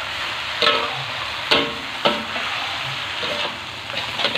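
Water spinach sizzling in a hot wok while a spatula stirs and tosses it, with a few short scrapes of the spatula against the pan.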